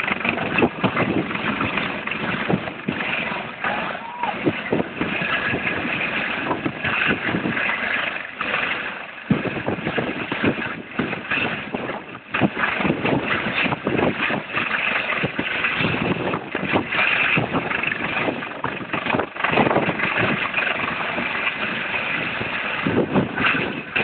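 Helicopter, which looks like a Eurocopter AS365 Dauphin, lifting off and climbing overhead. Its turbine engines give a steady high whine over the rotor noise, and the rotor downwash buffets the microphone in gusts.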